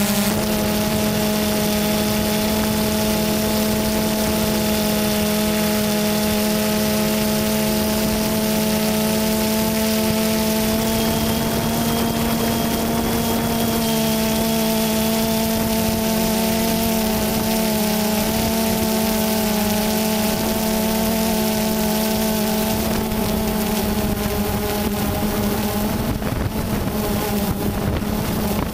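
DJI Phantom 2 quadcopter's motors and propellers buzzing steadily in flight, heard close up from the camera mounted on it. The pitch wavers a little midway, and wind buffets the microphone near the end.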